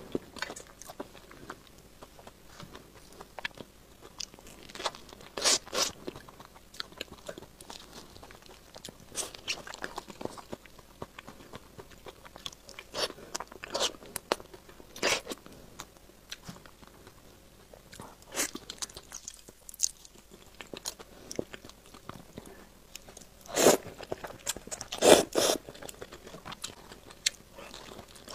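Close-miked mouth sounds of a person biting and chewing durian flesh: scattered wet smacks and clicks, with louder bites about five seconds in and twice more near the end.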